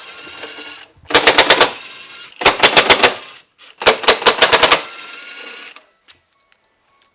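Three quick bursts of sharp bangs, about six to a burst and a little over a second apart, each trailing off in a brief ringing tail.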